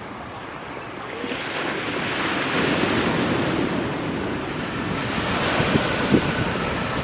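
Jet engines of a Boeing 777-300 airliner on approach to land: a broad rushing roar that builds over the first two seconds and holds, with a faint steady whine coming in during the last couple of seconds. Wind buffets the microphone.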